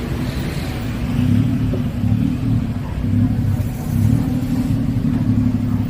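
A motor vehicle's engine running close by, a steady low hum that swells and eases every second or so.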